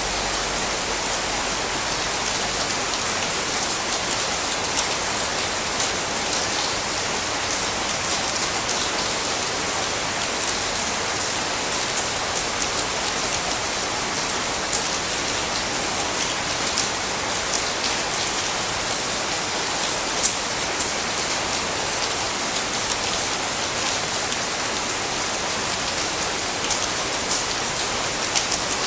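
Steady heavy tropical rain falling on surfaces, an even hiss with scattered sharper drop ticks.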